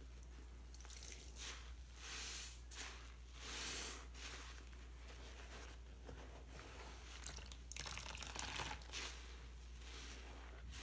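Wet foam sponges squeezed and kneaded in soapy detergent water: squelching, crackling suds and dripping water in several uneven squeezes, the loudest in the first few seconds.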